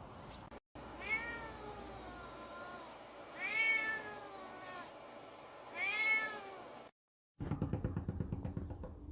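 A cat meowing three times, the first meow long and drawn out, the next two shorter.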